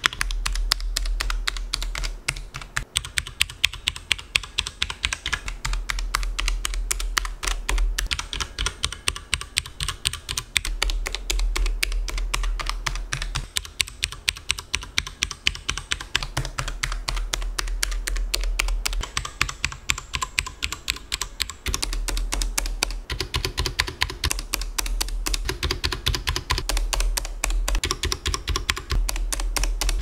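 Typing on a mechanical keyboard with tactile brown-type switches: a fast, continuous run of key clacks with short lulls every few seconds.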